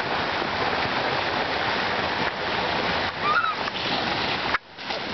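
Water rushing steadily down an open water slide and into the pool below. A brief high cry comes about three seconds in, and the sound cuts out suddenly for a moment near the end.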